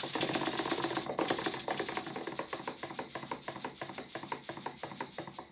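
Antique brass single-cylinder slide-valve model steam engine running on compressed air: a fast, even clatter of exhaust beats with an air hiss, starting abruptly and gradually getting quieter, fading out near the end. It is running, after a fashion, with plenty of oil injected into the steam chest.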